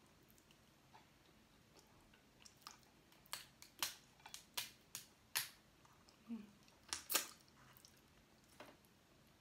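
Boiled crab shell cracking and snapping as it is pulled apart by hand: a run of about a dozen sharp cracks, starting a couple of seconds in, the loudest near the end of the run.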